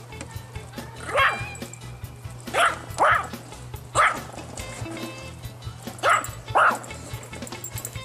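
Yorkshire terrier barking: six short, high, sharp barks, two of them in quick pairs, over background music.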